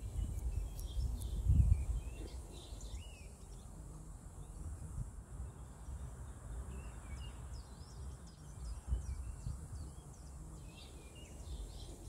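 Small songbirds chirping and calling in woodland, busy near the start, thinning out in the middle and picking up again near the end, over the low rumble of a breeze that gusts loudest about a second and a half in.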